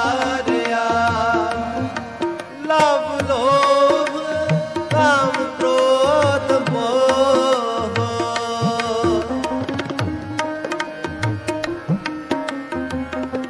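Shabad kirtan: a sliding, wavering melodic line sung over tabla. After about nine seconds the singing stops and the tabla keeps playing under steady held notes.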